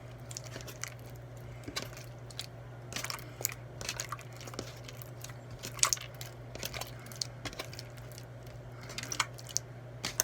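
Hands mixing and squeezing cloud slime with added conditioner, making irregular sticky crackles and pops, over a steady low hum.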